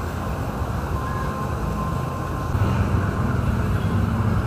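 Steady low background rumble with no speech, of the kind left by distant traffic or wind buffeting a phone microphone.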